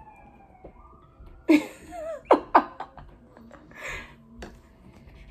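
Short bursts of laughter and wordless vocal exclamations, two sharp yelps close together, then a breathy outburst about four seconds in.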